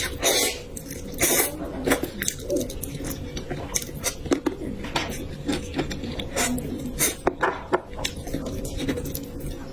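Close-miked eating sounds: irregular chewing with mouth clicks and smacks, a few longer wet smears near the start.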